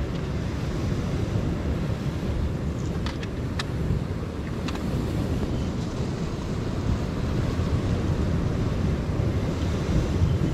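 Wind buffeting the microphone over the wash of surf on the rocks, a steady low rumble. A few faint clicks about three to five seconds in.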